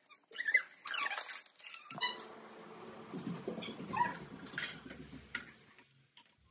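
Dry macaroni rattling and clicking on a steel plate as it is handled, with a few short high squeaks. After about two seconds this gives way to a steady low hiss and rumble of a gas burner heating a steel pot of water, which fades near the end.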